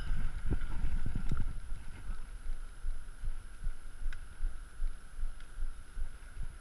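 Mountain bike rolling slowly over a concrete path, heard through a chest-mounted GoPro: a low rumble with soft, regular thumps, about three a second in the latter half, and a few sharp ticks.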